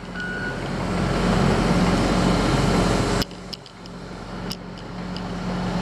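Heavy construction machine's diesel engine running under load, a loud rushing noise over a steady low hum. About three seconds in it drops off abruptly to a quieter steady engine hum with a few sharp clicks. A short high beep sounds at the start.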